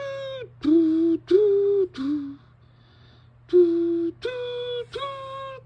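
A person's voice imitating the school chime melody by singing held, wordless notes: four notes, a pause of about a second, then three more. It is only a loose imitation of the chime.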